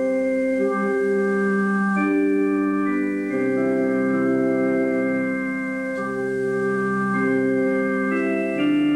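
Organ music: slow, sustained chords held without decay, moving to a new chord every one to two seconds.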